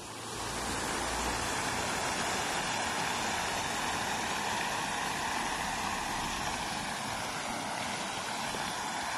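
Water from a plaza fountain's ring of jets and central spout splashing into its basin: a steady rushing splash that swells in over the first half second.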